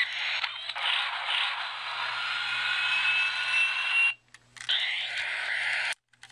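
Hess toy jet's built-in electronic jet sound effect, played through its small speaker: a tinny engine hiss with a faint slowly rising whine. It stops about four seconds in, comes back briefly, then cuts off suddenly.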